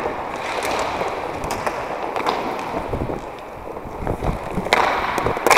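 Roller hockey play on a sport-court floor: a steady rumble of skate wheels rolling on the plastic tiles, with scattered sharp clacks of sticks and puck, the loudest two near the end.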